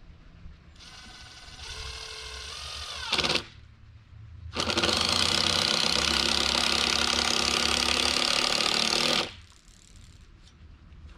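A hand-held power tool's motor running in two bursts: a short run whose pitch climbs just before it stops, then a longer, louder steady run of about four and a half seconds with a rattle, as when driving screws.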